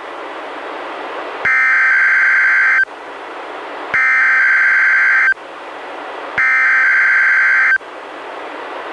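NOAA Weather Radio SAME header opening a Required Weekly Test: three identical bursts of digital data tones, each about a second and a half long, with steady radio hiss between them.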